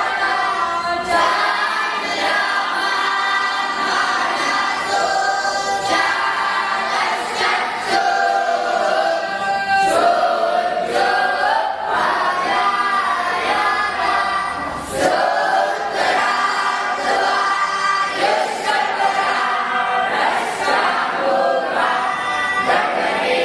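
A large group of voices chanting together in unison, a continuous melodic recitation without breaks.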